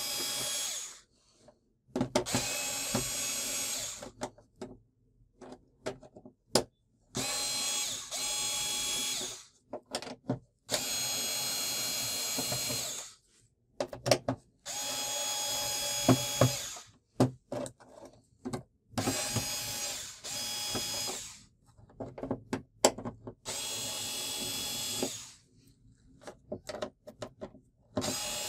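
Cordless electric screwdriver running in short bursts of one to two seconds, about seven times, backing screws out of an LED TV's plastic back cover. Small clicks and taps from handling the screws and the tool come between the runs.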